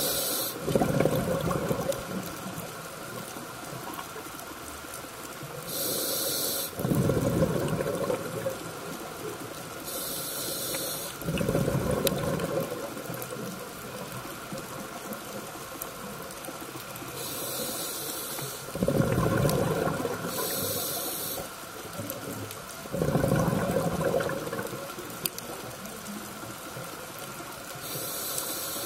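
Scuba diver breathing through a regulator underwater: a short hiss on each inhale, then a longer bubbling rush of exhaled air. There are about six breaths, one every four to five seconds.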